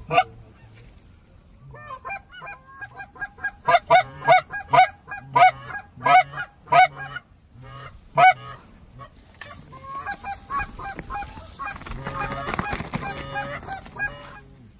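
Geese honking: a run of loud, short honks and clucks for several seconds, then many geese calling over one another near the end.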